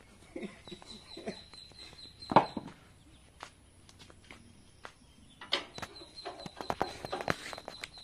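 Chickens clucking, with a scattering of sharp knocks and clicks; the loudest knock comes a little over two seconds in, and a quick run of them comes in the second half.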